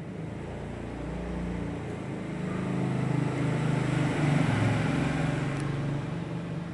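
A low, steady motor hum that swells to its loudest about four seconds in and then eases off.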